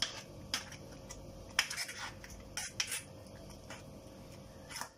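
A spoon stirring a thick chana dal, jaggery and coconut filling in a metal pan, with irregular scrapes and taps against the pan as the mixture is cooked down until it thickens.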